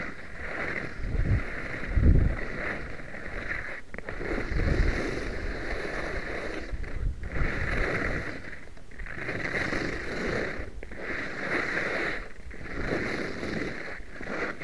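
Skis scraping and hissing over hard-packed snow through a series of linked turns, the noise swelling and fading every second or two.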